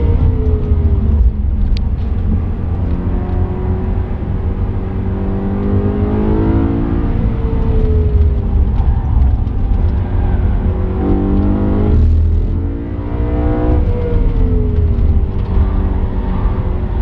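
BMW M3 E92's 4.0-litre V8, heard from inside the cabin at track pace. It revs up and drops away several times as the car is driven hard through corners, with a brief dip in loudness about three-quarters of the way through.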